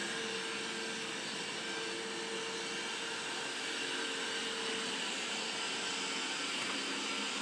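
Roborock E4 robot vacuum cleaner running steadily, a constant whirr of its suction fan with a faint held hum.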